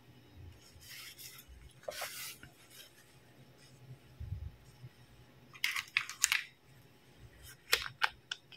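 Hard plastic toy doctor-set pieces handled, rubbed and tapped together: a couple of short scrapes early, a quick run of clicks about six seconds in, and a few sharp taps near the end.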